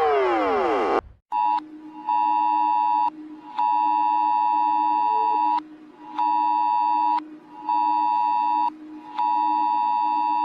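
Emergency alert alarm played in reverse: a siren tone sweeping downward cuts off about a second in. It is followed by six electronic beeps of uneven length, from a fraction of a second to about two seconds, over a steady low drone.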